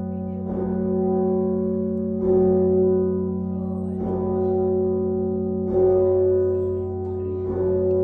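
Large tower bells ringing, a fresh stroke coming about every second and three-quarters over a continuous hum of sustained tones.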